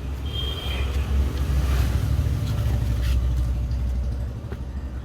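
A low vehicle rumble that swells about a second in and fades after about four seconds, like a motor vehicle passing by.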